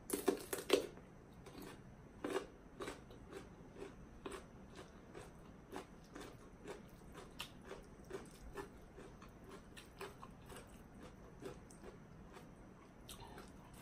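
Close-up eating of crunchy papaya salad and raw vegetables: a few loud crunching bites in the first second and another about two seconds in, then steady chewing with soft wet clicks about twice a second.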